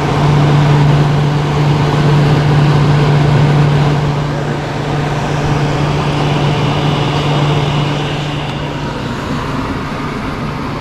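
1983 Gibson SlumberMaster window air conditioner running on high fan, blowing cold air: a steady rush of air with a low hum that eases slightly in the second half.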